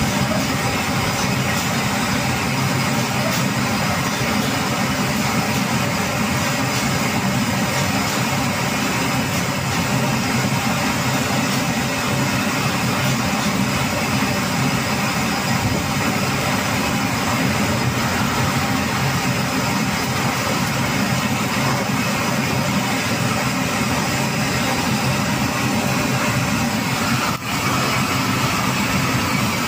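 Steady, continuous running noise of workshop machinery, a machine tool or motor humming without a break. Near the end there is a brief dip in level.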